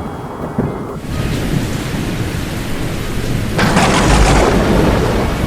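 Thunderstorm sound effect: steady rain hiss, with a loud thunderclap crack about three and a half seconds in that trails into a low rumble.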